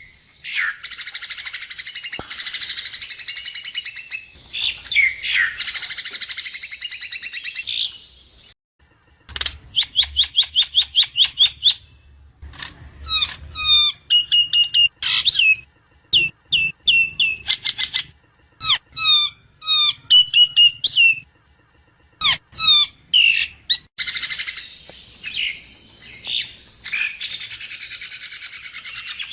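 Javan myna (jalak kebo) calling: several seconds of harsh, raspy chattering, then a quick run of sharp clicking notes, then phrases of short repeated whistled notes, and harsh chattering again near the end.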